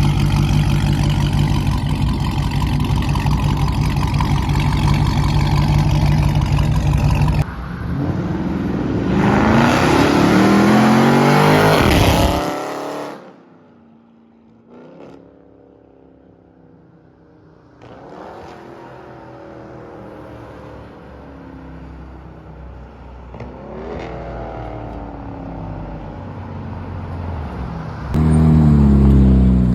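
Exhaust of a Dodge Charger Scat Pack's 392 HEMI V8 running through catless mid-pipes. It holds a loud, steady drone, then revs climb under hard acceleration. About halfway it falls away, comes back fainter with a few rising pulls, and near the end rises loud again.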